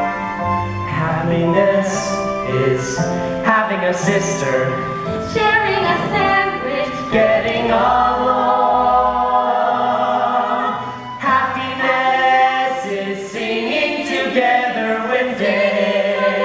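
A stage cast sings a musical number together as an ensemble, backed by instrumental accompaniment.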